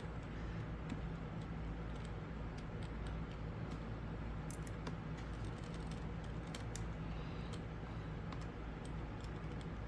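Small, irregular clicks and taps of a T5 Torx screwdriver and tiny screws being driven into the display cable bracket of a MacBook, over a steady low hum.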